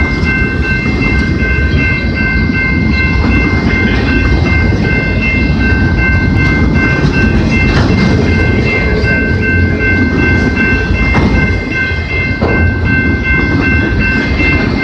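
Freight train of multilevel autorack cars rolling past at close range: a steady rumble of steel wheels on rail with occasional clacks and knocks, and a steady high whine held over it.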